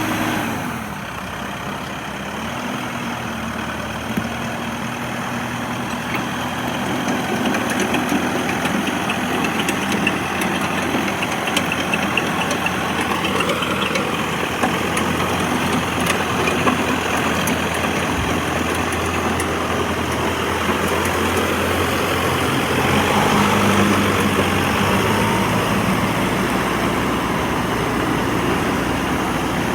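Mahindra mForce 105P farm tractor's diesel engine running steadily, its speed rising and falling a few times.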